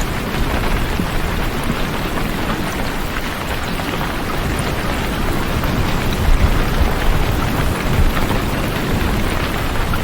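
Steady heavy rain, a dense hiss with a deep low rumble that swells a little past the middle.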